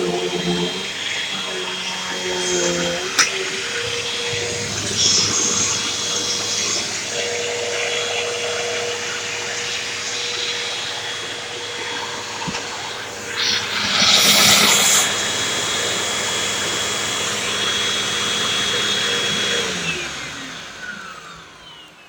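Hoover Rewind upright vacuum cleaner running steadily on carpet, sucking up spilled corn-cob bird litter, with a brief louder burst about two-thirds of the way through. Near the end it is switched off and the motor winds down, its whine falling away.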